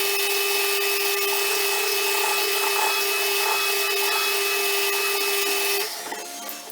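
A handheld power tool runs at a steady speed for about six seconds, starting and stopping abruptly. When it stops, a quieter steady motor hum is left.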